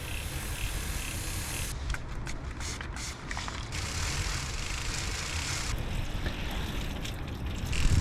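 Steady hiss of water spraying onto a bicycle chain while it is being cleaned, turning brighter and duller a few times as the spray moves.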